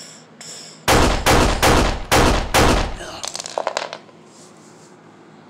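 Gunfire sound effect: a rapid string of about six loud shots starting about a second in, followed by a few fainter quick cracks.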